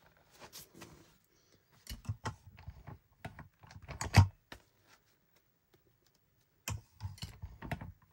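Irregular clicks and knocks as the metal wire binding and pages of a wire-bound journal are worked in a Zutter wire-binding machine while the wires are squeezed shut. The loudest knock comes about four seconds in, then there is a pause of a couple of seconds before the clicking starts again.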